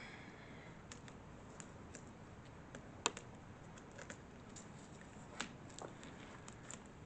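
Light, irregular clicks and ticks of hands working on a bicycle's handlebar and shift cable, the sharpest about three seconds in.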